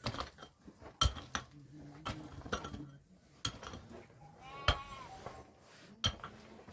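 Several sharp knocks and clinks, like objects or utensils being handled, with a single short livestock bleat about two-thirds of the way through.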